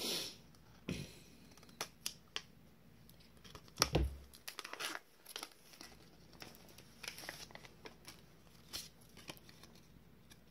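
Scissors snipping at a plastic-and-cardboard blister pack of trading cards, then the packaging being torn and crinkled open, in short scattered rustles and clicks. A louder knock comes about four seconds in.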